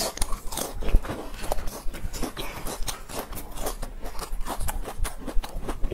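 Close-miked chewing of a fried cake with a crisp crust: a quick, irregular run of small crunchy clicks.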